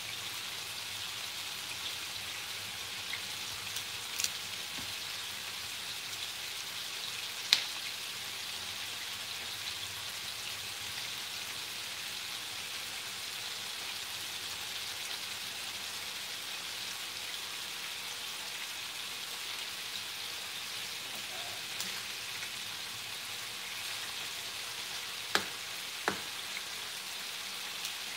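Chunks of beef searing in bacon grease in a skillet: a steady hiss of sizzling fat, broken by a few sharp clicks, the loudest about a quarter of the way in and two more close together near the end.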